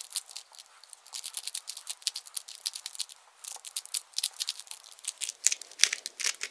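A Rubik's 2x2 cube being turned quickly by hand: a fast, irregular run of plastic clicks and clacks as its layers snap round. There is a short lull about halfway and a couple of louder clacks near the end.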